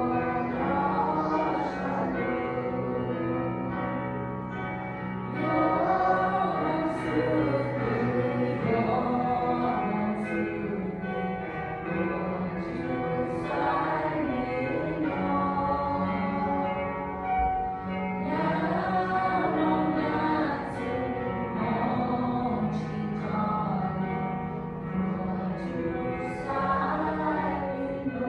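Music with singing voices over long held low notes.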